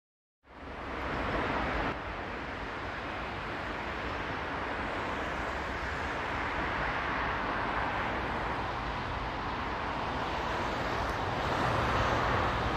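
JR Freight container train hauled by an EF200 electric locomotive approaching: a steady rushing noise of wheels on rail, with a low rumble growing a little louder near the end.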